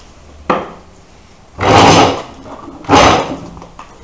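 Cardboard packaging handled: a sharp knock, then two loud scraping rushes of cardboard sliding against cardboard as a small inner box comes out of its carton.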